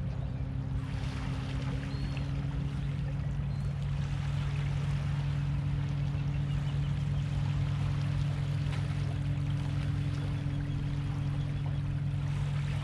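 Steady low motor hum over the faint wash of small waves at the water's edge, with a couple of faint high bird calls in the first few seconds.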